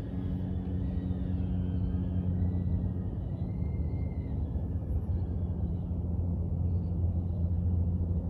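Steady low rumble of airflow with a faint whine from an FPV drone's propellers, drifting slowly in pitch as the throttle changes.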